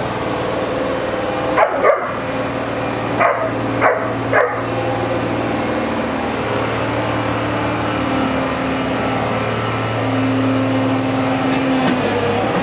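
Fila Brasileiro puppies barking: five short barks in the first half, two close together, then three more. A steady low motor hum runs underneath.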